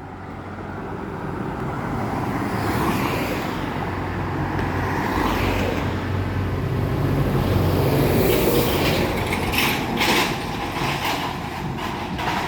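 Road traffic driving past, swelling as vehicles come close and easing off again, the loudest pass a little past the middle. A few short sharp noises follow in the last few seconds.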